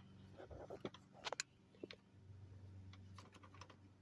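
Faint clicks and light rattles of a minivan sliding door's cable and roller assembly being handled, over a low steady hum.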